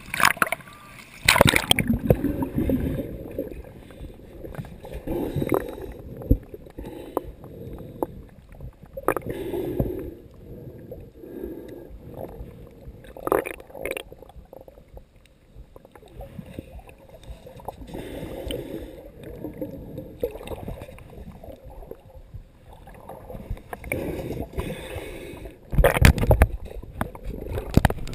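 Shallow surf heard with the camera at and under the water's surface: muffled churning and sloshing water that swells and ebbs every few seconds, with louder splashing bursts about a second in and near the end.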